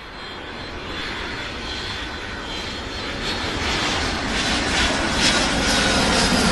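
Airplane engine noise growing steadily louder, with a faint high whine over it.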